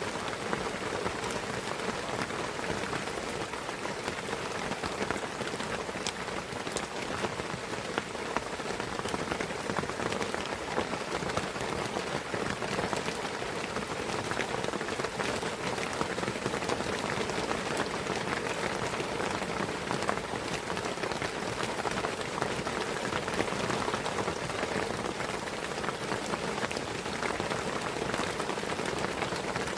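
Steady rain falling in a pine forest, a dense even patter of drops with scattered sharper drip ticks.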